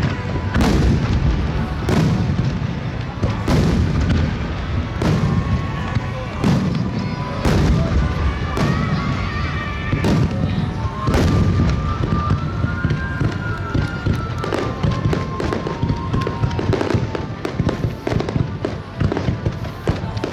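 Aerial fireworks display in a dense barrage: shells bursting in quick succession, a bang every half second to a second or so, with crackling between the bursts.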